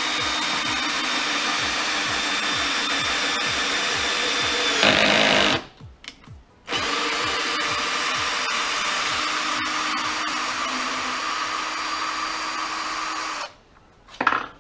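Parkside cordless drill-driver running under load as it drives a long 6 × 125 mm Torx screw into wood, with the clutch set to 10. It runs in two pushes: the first ends in a brief louder rasp about five seconds in, and after a short pause the second runs until about a second before the end.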